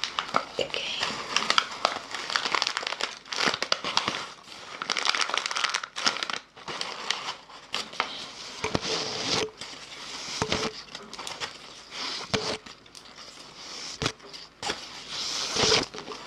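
Close-miked crinkling and crackling of packaging being handled, irregular and continuous, with a few brief squeaks.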